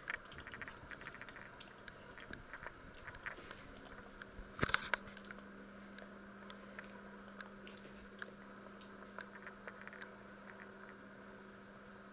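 Scattered faint clicks and small knocks, with one louder brief rustle about five seconds in; a faint steady hum sets in right after it.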